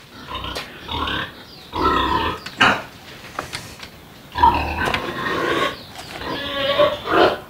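Domestic pigs squealing and grunting in about four separate calls of roughly a second each.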